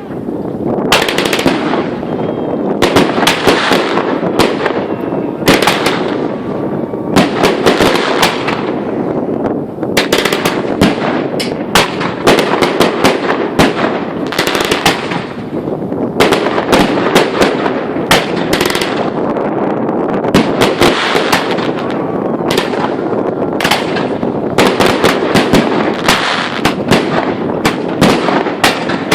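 Fireworks display in full swing: a dense, continuous barrage of shell bursts and crackling, with bangs following one another several times a second and no pause.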